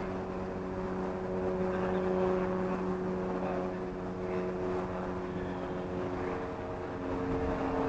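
A steady engine drone made of several held tones, over a low rumble of wind on the microphone.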